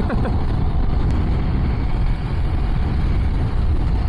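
Steady rush of wind on the microphone over a KTM 390's single-cylinder engine running while riding at speed, a continuous loud low rumble.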